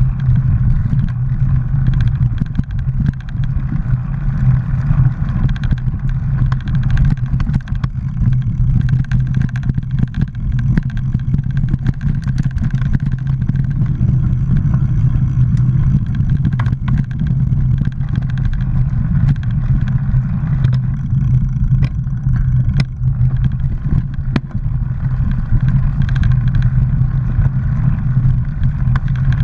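Mountain bike riding a dirt trail, heard through a bike-borne action camera: a loud, steady low rumble of wind and vibration on the microphone, with constant rattling and clicks from the bike over the rough ground.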